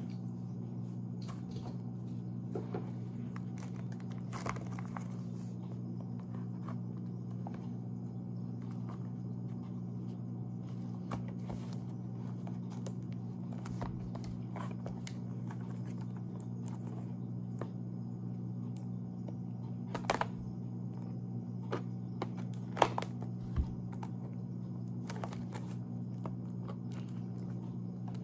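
A cardboard product box being handled on a table: faint rubbing and light taps, with a few sharper clicks past the middle, then the box's end flap being worked open. A steady low hum runs underneath throughout.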